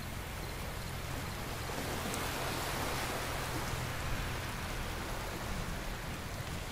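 Marinated chicken sizzling in a wire grill basket over hot charcoal, a steady even hiss, with a low rumble underneath.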